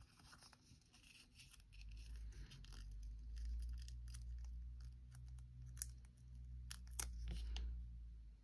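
Sticker being peeled off its backing sheet and handled, with a few light crackles and sharp clicks, over a low rumble that swells from about two seconds in and fades near the end.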